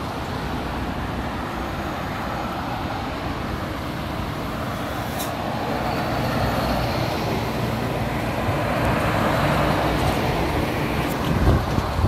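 Road traffic noise, growing louder through the middle as a refrigerated box truck passes close by, mixed with a JR West 115-series electric train pulling slowly away.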